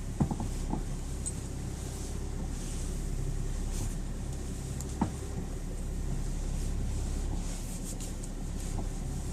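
BMW E60 idling with a steady low hum, with a few sharp knocks from the steering column as the wheel is turned: two close together right at the start and a louder one about halfway through. The owner traced the knocking to low power steering fluid.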